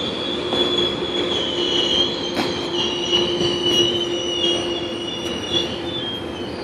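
GO Transit bilevel commuter train running past, its steel wheels squealing on the rails in high, slightly wavering tones over the rumble of the cars. It fades a little near the end as the train draws away.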